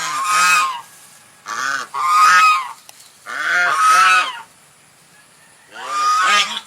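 Swans honking: four loud calls, each about a second long, with short pauses between them.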